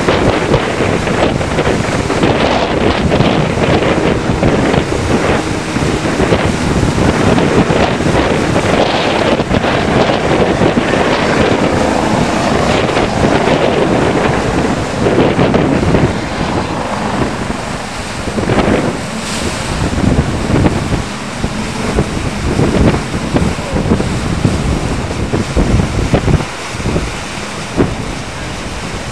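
Heavy wind buffeting the microphone over the rush of open sea and spray, loud throughout and easing a little about halfway through.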